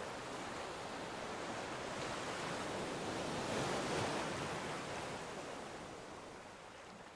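Ocean surf: a wave swells up, peaks about four seconds in, then washes back and fades away.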